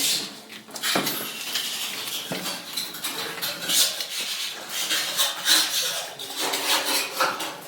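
Irregular clinking and clattering of hard objects being handled, with a couple of sharp knocks.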